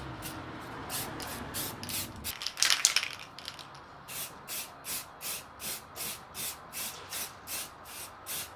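Aerosol spray-paint can hissing in short bursts, about three a second, as black paint goes onto a plastic bonnet vent. There is one longer, louder spray about two and a half seconds in.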